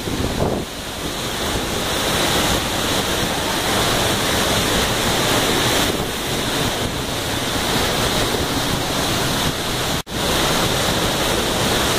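Waterfall pouring into its pool close by, a loud, steady rush of water. It cuts out for an instant about ten seconds in.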